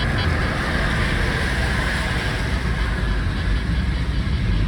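Car driving, heard from inside the cabin: steady road and tyre noise over a low engine rumble.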